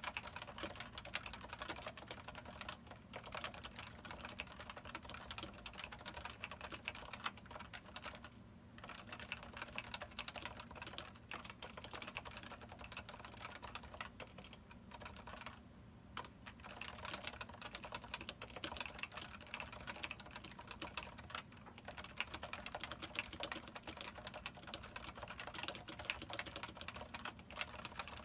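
Continuous fast typing on a Topre electrostatic capacitive keyboard with 45 g domes and ABS keycaps, a dense run of soft keystroke clacks with brief pauses every few seconds.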